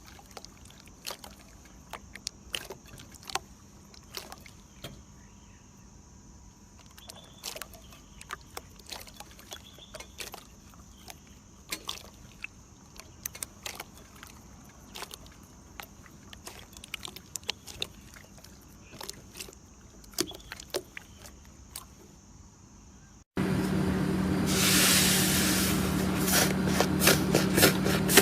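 Slime being squeezed and poked: scattered small pops and clicks over a faint steady hum. About 23 seconds in it cuts suddenly to a much louder stretch of dense crackling.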